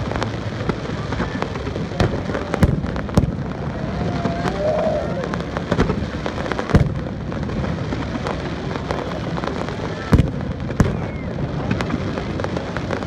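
Aerial fireworks display: a continuous crackling rumble of bursting shells, with sharp louder bangs scattered through it, the biggest at about two and a half, seven and ten seconds in.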